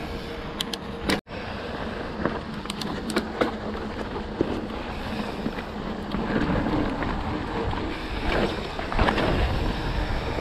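Mountain bike rolling over a dirt singletrack: a steady rumble of knobby tyres on the trail with wind on the microphone, broken by sharp clicks and rattles from the bike over the bumps.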